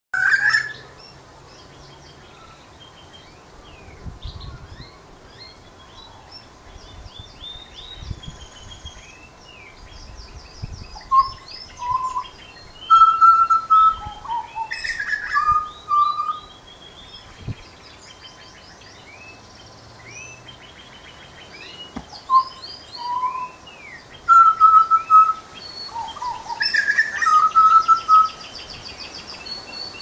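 Grey butcherbird singing: clear, piping whistled notes in short phrases, loudest at the very start, around the middle and again near the end, over fainter higher chirps.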